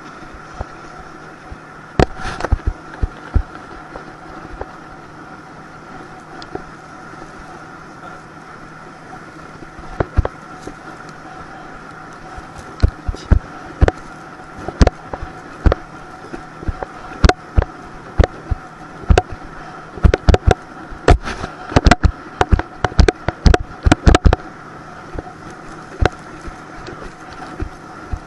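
Steady drone of the towing motorboat's engine, with many sharp knocks and slaps as the towed tube bounces over the chop, coming thickest in the second half.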